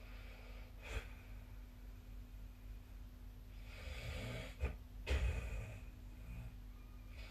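A sleeping person snoring, faint, over a low steady hum. One noisy breath builds from about three and a half seconds in into a louder snore around five seconds, then dies away. There is a brief tick about a second in.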